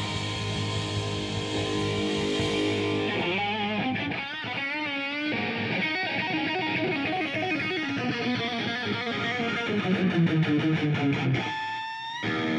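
Rock band playing live, led by a distorted electric guitar through a high-gain amplifier, with held notes that bend and waver. Near the end the low end drops out for a moment under a few high bent notes.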